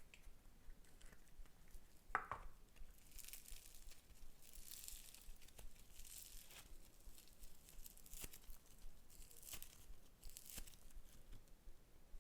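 Slime being handled at close range: sticky crackling and tearing noises in a series of short hissy strokes, with a brief sharp sound about two seconds in.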